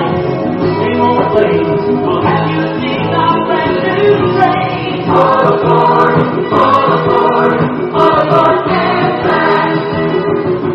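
Music with a choir singing long held chords that change every second or so.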